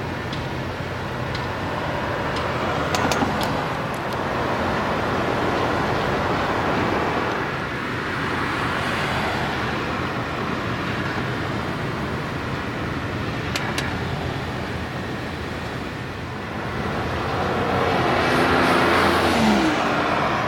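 Road traffic noise: steady rushing of cars and tyres on a street, swelling and fading as vehicles pass, with one engine rising and falling in pitch near the end.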